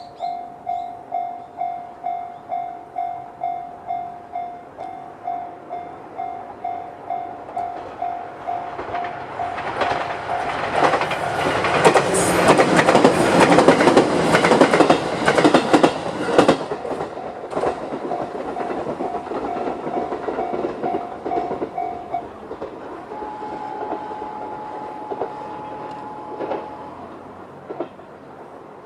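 Japanese level-crossing alarm sounding JR's standard electronic warning tone at about two rings a second, while a JR 211-series electric train passes over the crossing with its wheels clattering over the rail joints for several seconds. The alarm cuts off after the train has gone, and a steady single tone sounds briefly after that.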